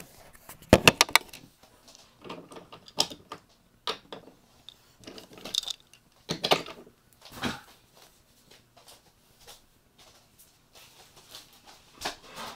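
Camera handling noise: irregular knocks, clicks and rubbing against the device, loudest as a quick run of knocks about a second in, then scattered bumps and rustles.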